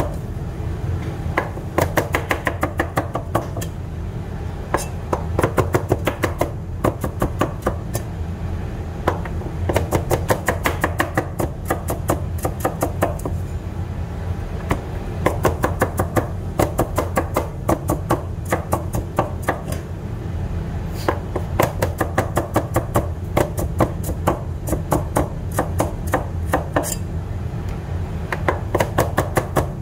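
A kitchen knife chopping food on a cutting board in fast runs of sharp, rapid strokes, each run a second or two long with short pauses between. A steady low hum runs underneath.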